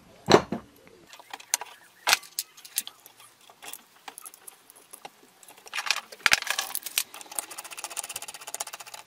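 Small metal parts of an ignition coil and stator plate are handled, giving scattered clicks and knocks. From about six and a half seconds in comes a fast, even clicking from a ratchet screwdriver as a coil mounting screw is wound in.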